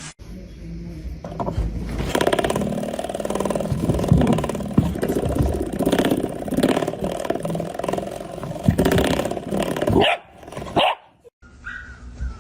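A dog vocalizing over and over for several seconds, broken off sharply near the end.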